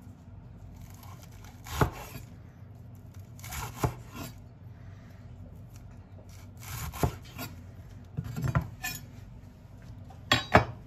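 Kitchen knife slicing through a head of lettuce on an end-grain wooden cutting board: each stroke is a short crisp crunch ending in a sharp knock of the blade on the board, several strokes at uneven intervals, two close together near the end.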